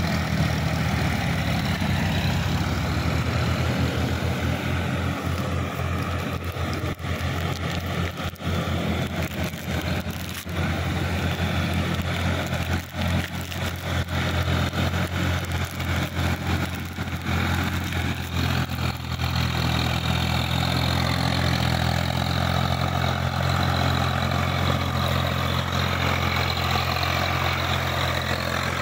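Tractor diesel engines running steadily under load while pulling tillage implements through wet paddy mud: a Sonalika DI-50 RX, then after a cut a Swaraj 855 FE. Through the middle stretch the engine note flutters with brief dips, then runs smoothly again.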